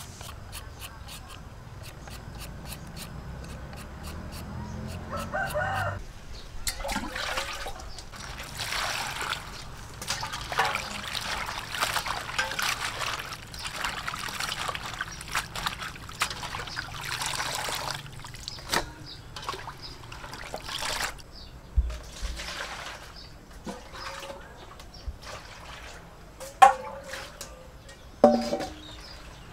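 Vegetables being washed by hand in a steel bowl of water: splashing and dripping as handfuls of chopped greens and carrot strips are lifted and dropped back, starting about six seconds in and lasting about fifteen seconds. At the start there are faint scrapes of a julienne peeler on a carrot. Near the end come two sharp metallic clanks of steel bowls being handled.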